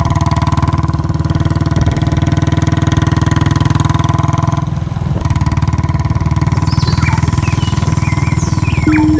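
Royal Enfield motorcycle's single-cylinder engine running with a steady, even thump. A few bird chirps come in near the end, and a music track begins just before it ends.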